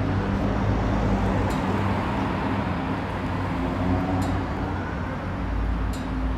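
Town street ambience: steady traffic noise with a low hum, and a few short faint clicks.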